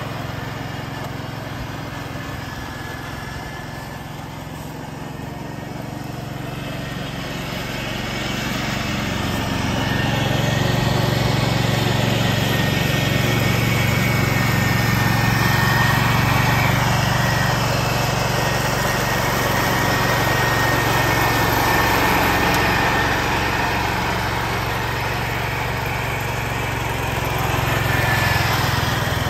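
1969 Ford 140 garden tractor running steadily with its mower deck engaged, mulching dry leaves, a steady high whine over the engine. It grows louder as the tractor comes closer, eases off, then swells again as it passes close near the end.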